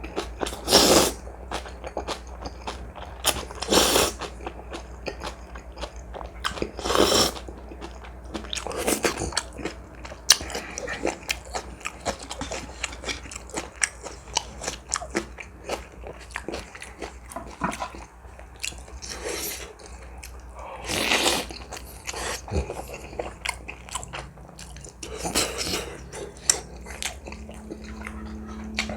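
Close-miked eating of ramen with dumplings and crunchy kimchi: continuous chewing and biting clicks, with louder bursts every few seconds.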